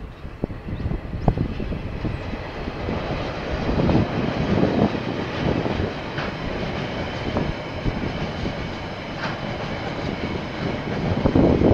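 KiwiRail diesel locomotive passing at the head of a container freight train, followed by the wagons rolling by on the rails. The sound swells about four seconds in and again near the end.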